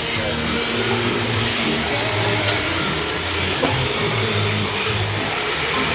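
Electric Yokomo YD-2 radio-controlled drift cars running on the track, their motors giving short high whines that rise and fall as they speed up and back off.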